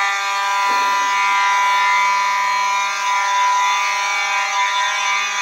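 Two Simplex 4903-series mechanical fire alarm horns, a 9219 and a 9217, blaring together in a steady, unbroken buzzing tone. Their pitches sit a hair apart and form a harmony.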